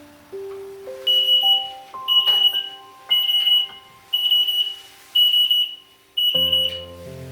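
A timer beeping once a second, six high-pitched beeps each about half a second long, signalling that the cookies' baking time is up. Soft background music with rising notes plays underneath.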